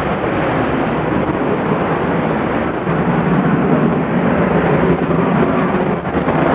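Saab Gripen C fighter's single Volvo RM12 turbofan, loud steady jet noise as the fighter climbs steeply, with a brief dip about six seconds in.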